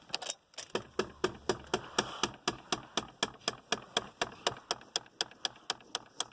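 Heater recirculation-flap motor-gearbox (actuator) clicking over and over, about four clicks a second. The owner takes it for a failed gearbox, probably stripped teeth on a plastic gear, with the recirculation flap jammed.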